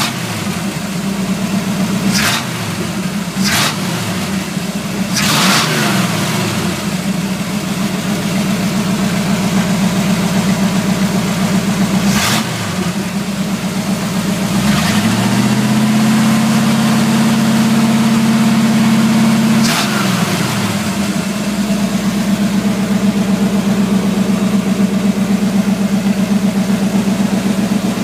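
Freshly rebuilt carbureted V8 in a Dodge D-100 idling, blipped by hand at the throttle linkage four or five times in quick revs. Then it is held at raised revs for about five seconds and drops back to a steady idle. The ignition timing is still set slow for break-in.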